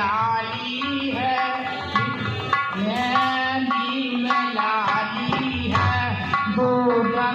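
Devotional bhajan music: tabla playing a steady rhythm under a held, gliding melody line.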